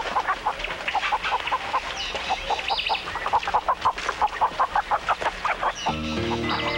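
A domestic chicken clucking in a quick run of short, repeated clucks, with a few higher squawks in the middle. A sustained musical chord comes in near the end.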